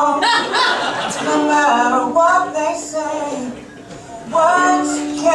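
A man and a woman singing live, their voices held and bending in pitch, with a short break in the singing about four seconds in.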